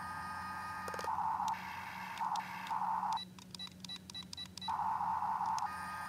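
Small electric motors of a remote-control toy excavator whining in short bursts as the boom and arm are worked, with a run of rapid even clicking in the middle of the stretch.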